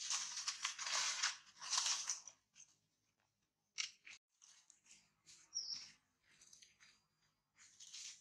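Dry fallen leaves rustling and crackling under scuffling young monkeys, in loud bursts over the first two seconds or so, then scattered quieter rustles after a short pause. A brief high chirp sounds a little past the middle.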